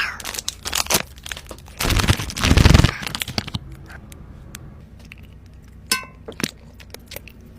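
Close-miked crackling and crunching of sour candy being eaten: a dense run of crisp crackles for the first few seconds, loudest just before the three-second mark, then scattered single clicks and ticks.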